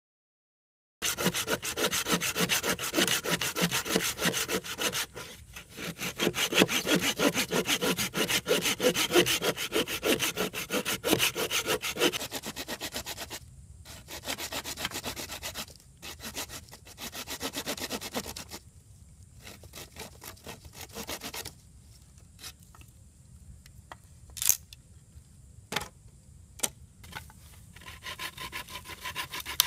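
Hand saw cutting wood in fast, even strokes for about ten seconds, then in shorter bouts with pauses, trailing off into a few separate knocks.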